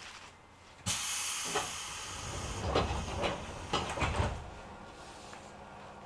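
Sharp compressed-air hiss about a second in from the door engines of a JR 205 series electric train at a station stop, followed by several dull thuds as the sliding doors move and seat.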